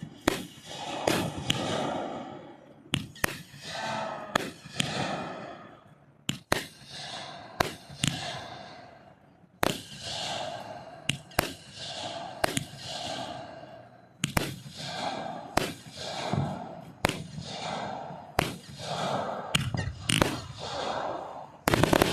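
Aerial fireworks going off in quick succession: repeated sharp bangs, roughly one a second, each followed by a short crackling tail.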